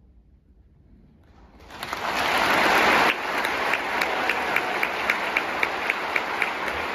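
Concert-hall audience applause breaking out after a short silence: it swells in about a second and a half in, is loudest for a second or so, then settles into steady clapping with an even beat of sharp claps about four a second standing out.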